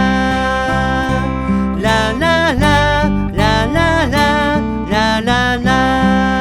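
A short song: strummed acoustic guitar over a bass line, with a wordless sung 'la la' melody gliding between notes about two, three and a half, and five seconds in. It is recorded through a BAE 1073DMP mic preamp from a Neumann U87 Ai microphone.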